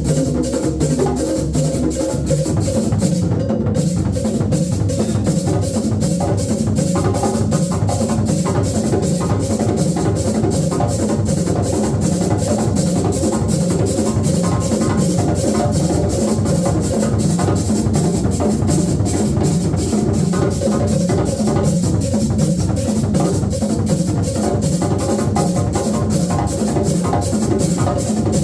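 Drum ensemble playing live: many drums struck together in a fast, even beat that runs on without a break.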